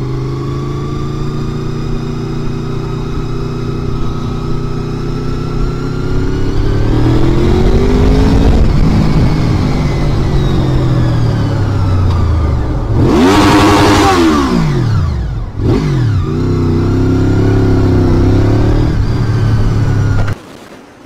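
Sport motorcycle engine running hard while the bike accelerates, its pitch climbing steadily. About thirteen seconds in there is a loud rush of noise and the engine pitch swings sharply down and back up, then it holds high revs until the sound drops away suddenly near the end.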